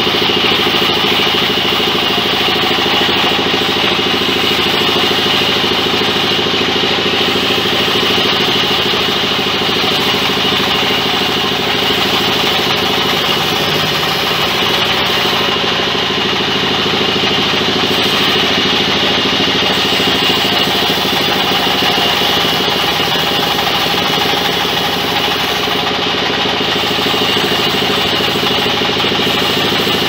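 Large vertical band saw running and ripping a long log lengthwise: a steady mechanical drone with a steady high-pitched whine from the blade cutting.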